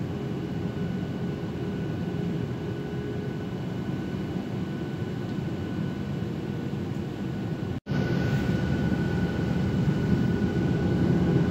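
Steady cabin noise inside a Boeing 737-800 in flight: the even rumble and hiss of the engines and airflow, with a few faint steady tones. It cuts out for an instant about eight seconds in and comes back slightly louder.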